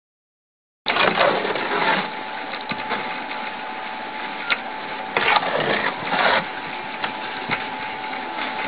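Cement roof-tile forming machine running along its casting bed: a steady motor hum with a constant whine and scraping noise, starting after a brief silence about a second in, with a few louder bursts in the middle.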